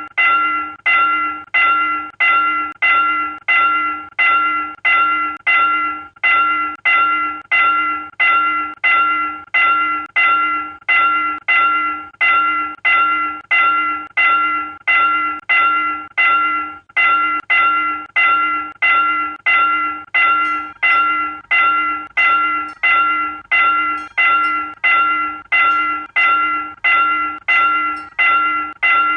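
South Korean railroad level-crossing warning bell ringing: one identical ding about twice a second, each stroke starting sharply and fading fast, repeating without change.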